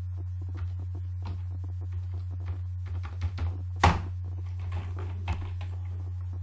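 Computer keyboard keys pressed in short irregular clicks, with one louder knock about four seconds in, over a steady low hum.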